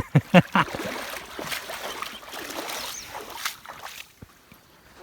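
A person plunging into cold river water: a few short cries at the start, then water splashing and churning for about three seconds before it settles.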